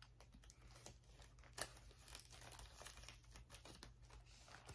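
Faint rustling and crinkling of thread cards and packaging being handled, with scattered small clicks and one slightly louder rustle about one and a half seconds in, over a low steady hum.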